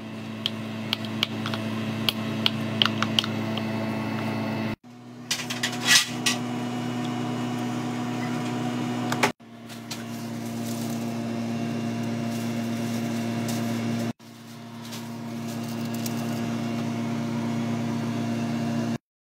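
A steady electrical hum from a running kitchen appliance, breaking off sharply three times, with light clicks of a metal spoon against a ceramic bowl during the first few seconds and a brief cluster of sharper clinks about five to six seconds in, as fish steaks are turned in a thick marinade.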